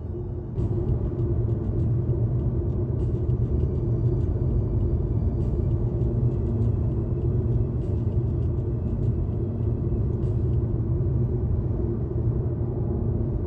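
Steady low road rumble of a car cruising at highway speed, tyre and engine noise heard inside the car, coming in about half a second in.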